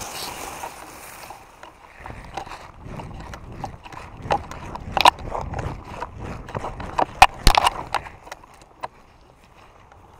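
Hurried footsteps and knocking of gear as a player moves, a run of uneven clicks and thuds with a few sharper knocks in the middle and later part, then quieter toward the end.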